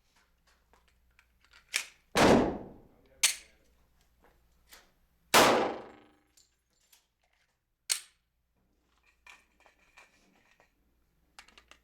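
Two pistol shots from a .45 ACP Glock 36, about three seconds apart, each with a ringing tail. Sharp metallic clicks come before, between and after them as the gun is handled. The pistol is malfunctioning shot after shot, which the owner blames on its new extended slide stop.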